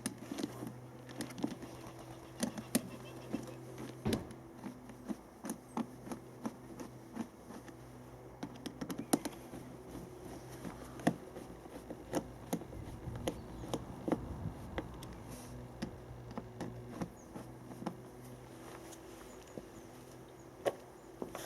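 Irregular light clicks and taps of the generator's cover panel being handled and fitted back into place, over a steady low hum.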